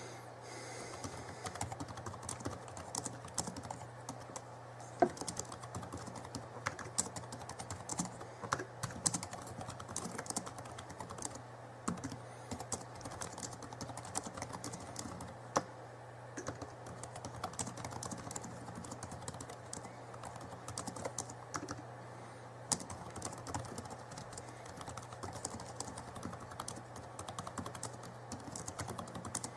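Fast, irregular clicking of typing on a computer keyboard, over a low steady hum.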